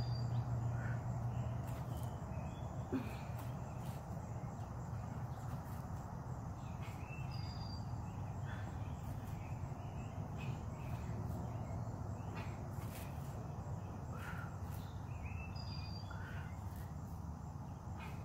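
Outdoor ambience: scattered short bird calls over a steady insect drone and a low, even hum.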